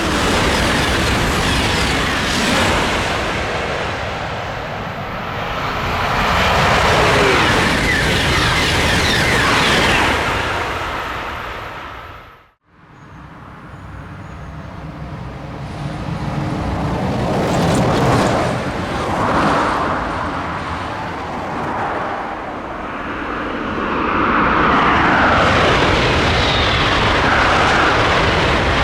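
High-speed TGV trains passing at full speed: a loud rush of air and rolling noise that swells and eases off. It cuts off abruptly about twelve seconds in, then a second train's noise builds up and stays loud to the end.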